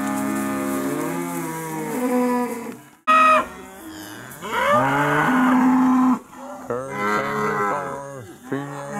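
Angus-cross steers and heifers mooing, several long drawn-out calls one after another, with a sudden loud call about three seconds in.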